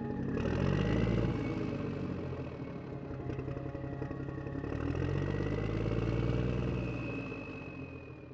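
Motorbike engine running at road speed with road noise; it swells twice, about a second in and again over the later seconds, then fades out near the end.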